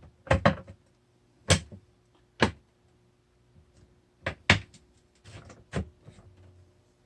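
Side rail of a Onewheel Pint being fitted back onto the board, making a series of irregular sharp knocks and clunks as the parts are handled and seated.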